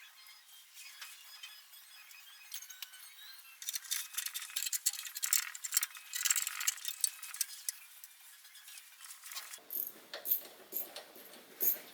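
Metal tools clinking and ticking against engine parts and bolts while bolts are loosened and worked out, with a denser run of clicks in the middle.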